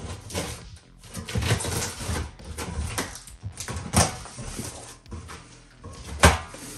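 Cardboard shipping box being opened by hand: irregular scraping and rustling of cardboard and tape, with a sharp knock about four seconds in and a louder one near the end.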